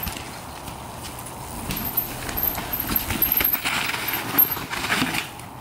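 Mountain bike rolling down a rocky trail close by: tyres crunching over gravel and stones, the bike clattering and knocking over rocks and a wooden plank. The clatter builds about two seconds in and is loudest about four and a half seconds in.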